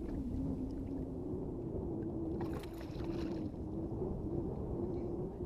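Steady low wind and water noise around a small inflatable boat on open water, with a faint steady hum underneath. A short splashy hiss comes about two and a half seconds in, as a hooked fish is played beside the boat.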